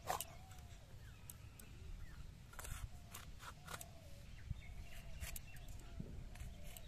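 A large knife cutting through a green bell pepper held in the hand: a few short crisp cuts and snaps. Faint bird calls in the background.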